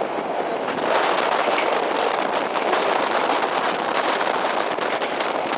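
Steady rushing noise of a moving passenger train heard from its window, with airflow buffeting the microphone and faint rapid clicks of the running gear.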